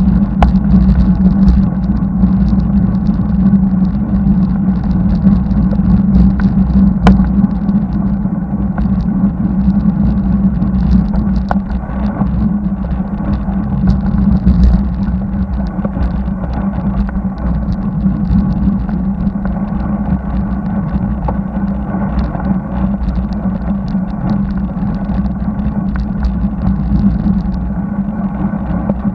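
Continuous wind and road noise on a bicycle-mounted camera's microphone while riding along a highway, with a steady low hum and traffic. A few faint clicks.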